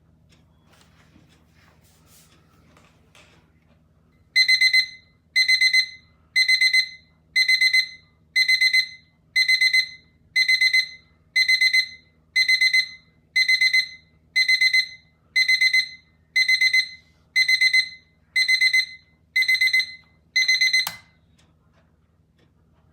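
Ajanta Oreva AA-3307 alarm clock's alarm going off: high-pitched bursts of rapid beeps, about one burst a second, starting about four seconds in. The beeping cuts off with a click near the end.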